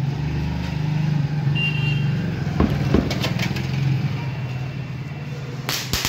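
Motorcycle engine running steadily with a low hum, with two short cracks near the middle. Just before the end, a ground fountain firecracker (anar) ignites and starts hissing as it sprays sparks.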